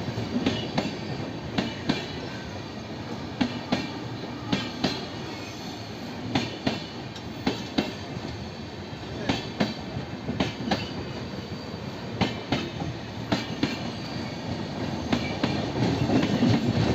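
Indian Railways passenger chair-car coaches of an arriving express rolling past alongside the platform: a steady rumble of wheels with sharp clacks every second or so, often in pairs, as the wheelsets cross rail joints.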